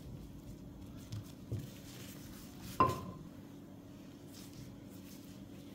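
Gloved hands folding and pressing a sheet of buttered dough on a silicone mat: two soft thumps, then one sharp clink with a short ring about three seconds in, over a steady low hum.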